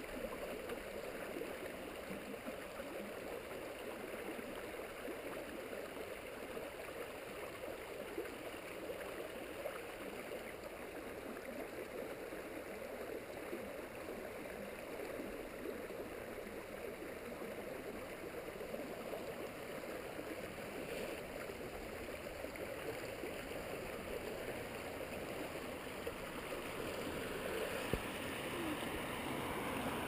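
Small stream's water running steadily, an even rushing sound with no breaks.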